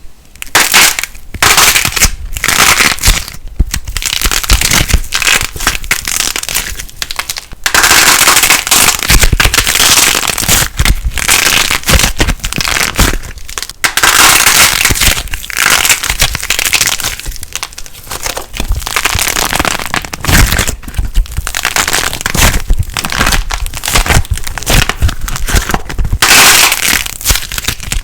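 Light plasticine (lightweight foam modelling clay) being squeezed and worked by hand, giving a loud, dense run of crackles and small pops.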